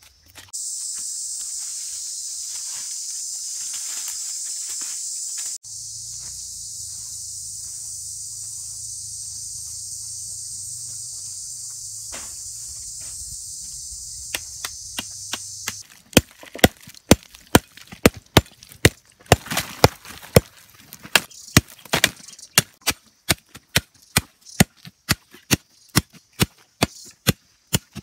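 A steady high-pitched insect chorus fills the first half. Then a machete strikes repeatedly in sharp chopping blows, about two to three a second.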